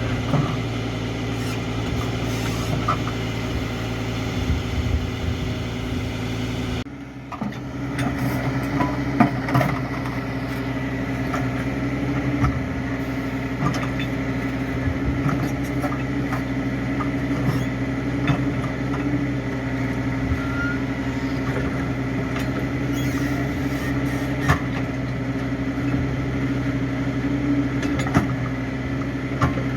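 Backhoe's diesel engine running steadily, with scattered short knocks and clanks. About seven seconds in the sound dips briefly and the engine note changes.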